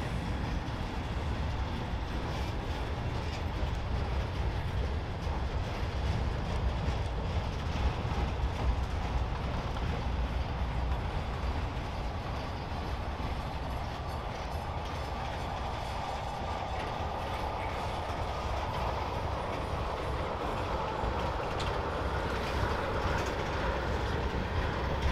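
Freight train cars rolling past at steady speed: a continuous low rumble of steel wheels on the rails with light clickety-clack over the joints. A higher rushing wheel noise builds through the second half as the tank cars go by.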